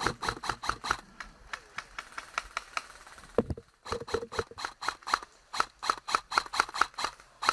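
A run of sharp clicks and taps, several a second, in irregular bursts, with a low thump about three and a half seconds in.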